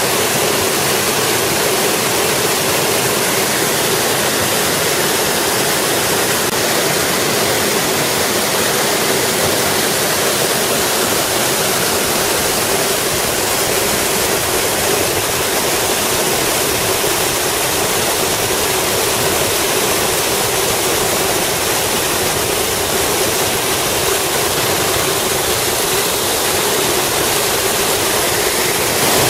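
Waterfall: water pouring over a rock lip and cascading into a pool, a steady rushing that does not change.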